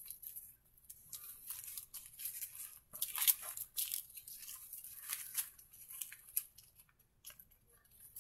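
Small plastic bags of diamond painting drills crinkling and rustling as they are handled and gathered together, in irregular rustles with the loudest about three seconds in.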